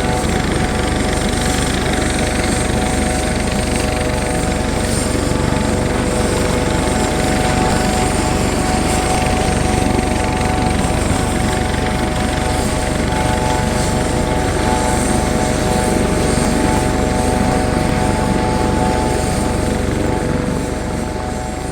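Helicopter running steadily after start-up: a constant turbine whine made of several fixed tones over a dense rotor and engine rumble, with no change in speed, easing slightly in loudness near the end.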